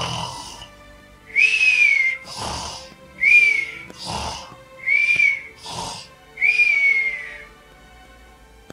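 Comic, cartoon-style snoring: four cycles of a whistled breath that rises briefly and then falls, each followed by a rougher snort-like snore, starting about a second in and stopping about a second before the end.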